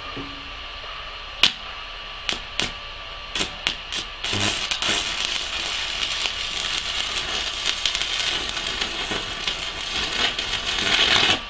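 Stick (MMA) welding arc from a 4 mm electrode at 200 amps. A few sharp cracks come as the electrode is struck against the steel. About four seconds in the arc catches and runs as a steady crackling hiss, getting louder toward the end and dipping off abruptly at the very end.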